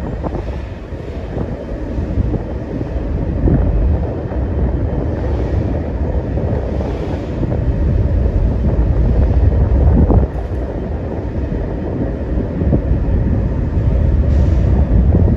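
Strong wind buffeting the microphone over a heavy, uneven low rumble aboard a car ferry in rough seas, with a few brief knocks.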